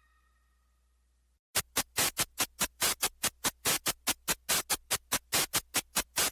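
Electronic background music: after about a second and a half of silence, a fast, even run of short, sharp noise beats starts, about five a second.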